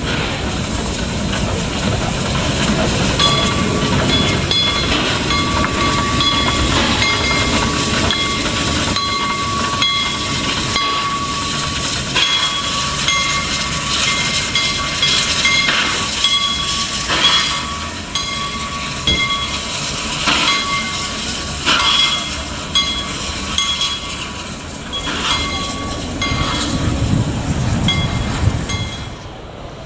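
Württemberg T3 steam tank locomotive moving slowly with steam hissing. A high steady tone comes and goes over it, and there are several sharp metallic knocks in the second half.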